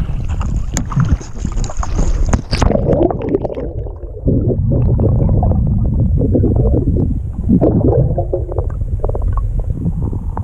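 Water splashing and knocking against a kayak-mounted camera as it tips into a river, then, from about two and a half seconds in, muffled underwater rumbling and gurgling heard with the camera submerged, the higher sounds cut off.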